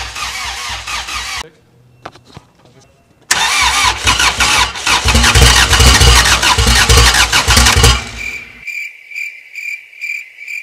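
Starter cranking a freshly rebuilt Honda D-series four-cylinder on its first start attempts: a short crank, then after a pause a longer crank of about five seconds, and the engine does not catch. Near the end a high beep repeats about twice a second.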